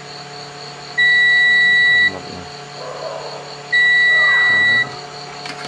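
Digital multimeter's continuity beeper sounding twice, each a steady high beep lasting about a second. The beep means the probes have found a closed circuit through the power strip's switch.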